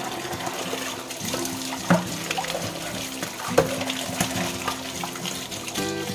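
Hands scrubbing eels in water in a plastic basin: sloshing and splashing, with two louder splashes or knocks about two and three and a half seconds in. Background music plays underneath.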